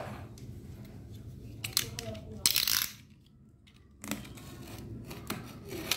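A utility knife cutting into a tape-wrapped cardboard tube. A few sharp clicks come first, then a short, loud scraping cut about two and a half seconds in, and rustling handling and slicing near the end.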